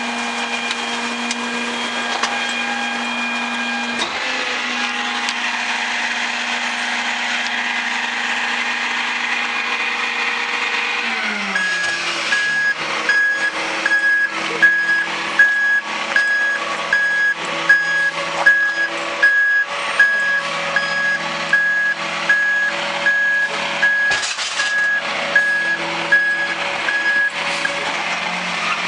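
Mack MRU garbage truck's diesel engine running steadily; about eleven seconds in its note drops and the reversing alarm starts, a steady string of short high beeps, about one and a half a second, as the truck backs up to a dumpster. Sharp knocks and clatter sound over the beeping.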